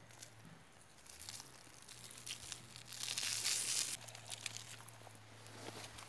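A brown paper sack crinkling and rustling as it is shaken to pour soil out onto the ground, loudest about three seconds in.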